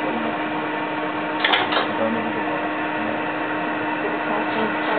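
Eiffel Tower summit elevator cabin running as it climbs, with a steady mechanical hum holding one constant low tone. Two brief rattles come about a second and a half in.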